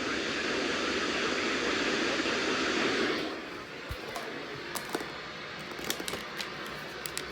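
Radio receiver static: a steady hiss that drops in level about three seconds in, then a quieter hiss with scattered crackling clicks.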